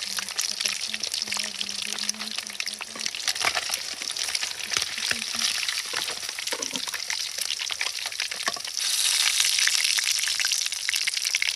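Fish frying in hot oil: steady sizzling with dense crackling and spitting, growing louder about nine seconds in.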